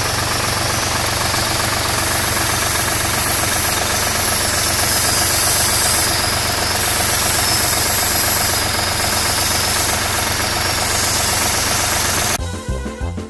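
Massey Ferguson tractor's diesel engine running steadily at idle. Near the end it cuts off abruptly and keyboard music takes over.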